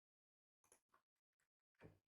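Keyboard typing, faint and irregular: a handful of separate key clicks in the second half, ending in a heavier keystroke or thud.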